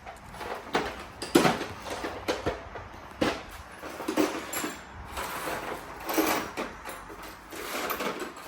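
Irregular knocks and clicks of hand work on a car, as of parts and tools being handled, with a quick cluster of clicks about six seconds in.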